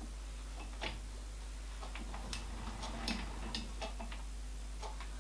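Scattered light metallic clicks and taps at uneven intervals from hand adjustment of a metal lathe's indicator and tool setup, over a faint steady low hum.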